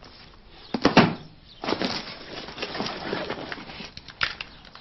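Handling noise from a book and a backpack: a sharp double knock about a second in, then rustling as the bag is rummaged and a pair of headphones pulled out, and a single click near the end.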